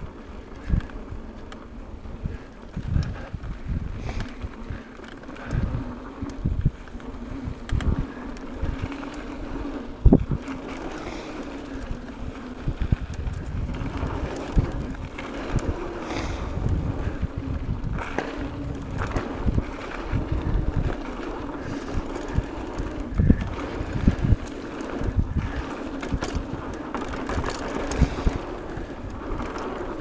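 Mountain bike riding over a dirt trail: tyres rumbling on the ground and the bike jolting over bumps in many dull thumps, with wind buffeting the camera microphone. A sharp knock about ten seconds in is the loudest moment.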